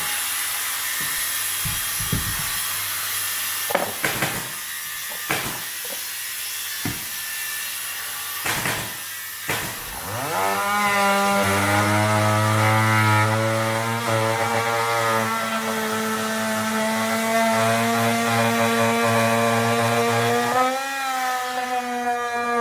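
A few scattered knocks, then about ten seconds in a Makita oscillating multi-tool spins up and runs at a steady pitch while cutting into a wood veneer panel. Its pitch rises briefly near the end.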